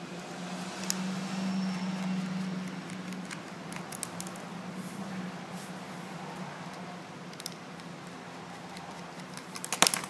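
Light metal clicks and taps from a small screwdriver working the screws out of a laptop hard drive's metal caddy and the screws being handled, with a louder clatter of clicks near the end. A steady low hum runs underneath.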